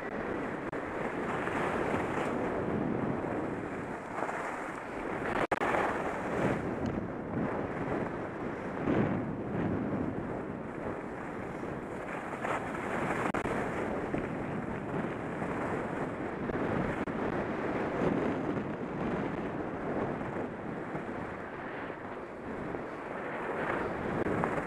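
Wind rushing over a helmet camera's microphone while skiing downhill, mixed with the hiss and scrape of skis on groomed snow, swelling and easing with the turns.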